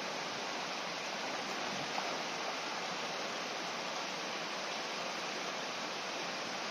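Shallow stream running over a small rocky cascade: a steady, even rush of water.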